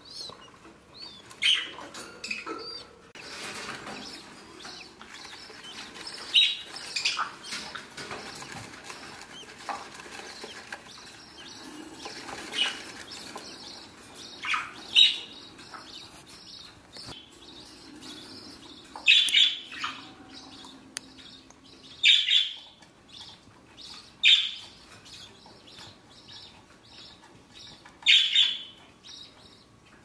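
Budgerigars in a nest box giving short, sharp chirps and squawks, about a dozen spread out, each brief and loud, with rustling movement in the wood-shaving litter between them.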